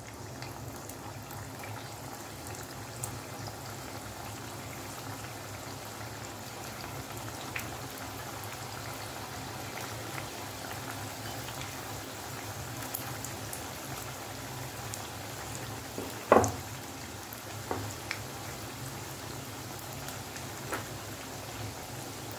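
Cornflour-coated baby corn deep-frying in hot oil: a steady sizzle with a few sharp clicks scattered through it, the loudest about two-thirds of the way in.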